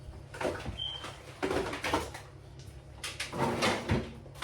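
Knocks and rustles of grocery packages being handled and put away, with a cupboard or fridge door bumping, in three short bouts. A brief high squeak sounds about a second in.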